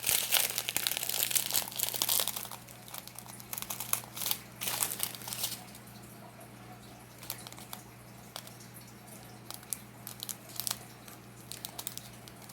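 Plastic crinkling from small bags of diamond-painting drills being handled: dense for the first couple of seconds, then scattered crinkles and clicks that die down to faint rustling by about the middle.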